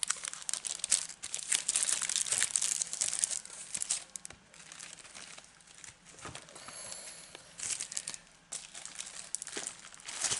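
Clear plastic packaging crinkling as it is handled. The crinkling is dense for the first few seconds, drops to a quieter stretch in the middle, and picks up again near the end.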